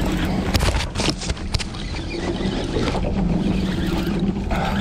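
Marine engine idling steadily under the fishing craft, with a few sharp knocks about a second in.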